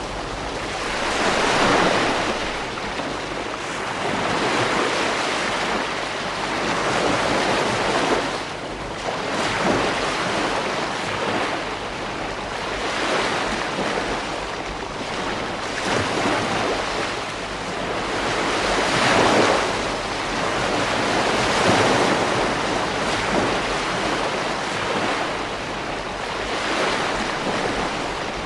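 Ocean waves breaking and washing up a beach, the surf swelling and ebbing every few seconds, with some wind noise on the microphone.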